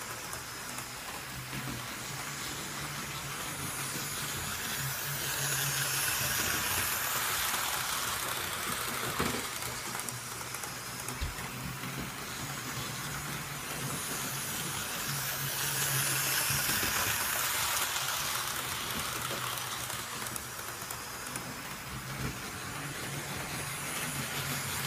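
Model train (a steam-outline locomotive hauling coaches) running on its track: a steady rushing rattle of wheels on rail with a low motor hum underneath, swelling and fading several times as the train comes nearer and moves away.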